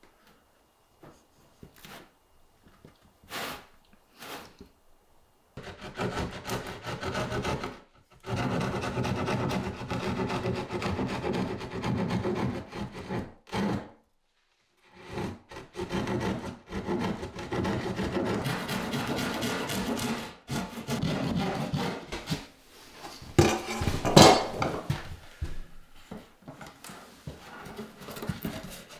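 A hand tool scraping on wood in long steady spells, broken by short pauses, after a few scattered light knocks. There is one sharper knock a little past the middle of the second spell.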